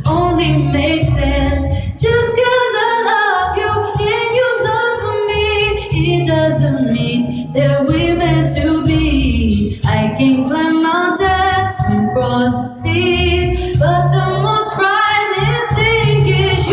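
A woman singing, holding long notes with vibrato, over an instrumental backing with a low bass line.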